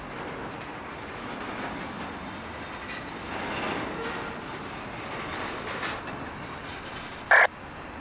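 Freight cars of a long manifest train rolling slowly along the track while the train backs up, their steel wheels making a steady rumbling rail noise. A short, loud metallic noise comes near the end.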